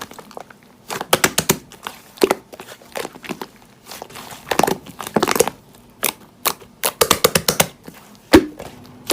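Slime being squeezed and worked by hand, giving irregular clusters of sharp crackles and pops, with one louder snap near the end.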